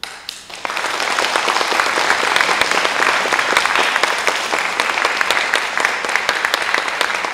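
Audience applauding, starting suddenly and building to full strength within the first second, then steady.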